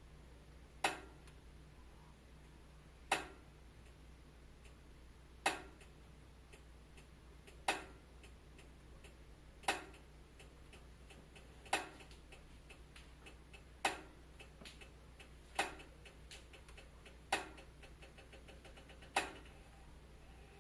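Wood fire crackling in a fireplace: a sharp pop about every two seconds, with fainter small crackles between them, over a low steady hum.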